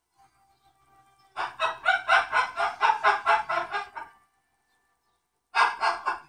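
Cockatoo screaming in a rapid run of harsh repeated calls, about five a second, for nearly three seconds, then a shorter burst near the end.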